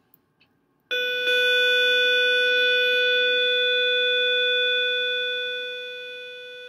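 A steady electronic tone on one pitch with a stack of overtones. It starts abruptly about a second in, holds for nearly six seconds, and fades a little before it cuts off.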